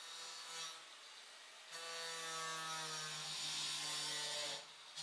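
Angle grinder with a thin disc cutting into the rusted sheet-steel body tub of a 1956 Willys CJ5. It is quieter at first; from about two seconds in the disc bites and the cut gives a hissing whine whose pitch slowly sags under the load, easing off briefly just before the end.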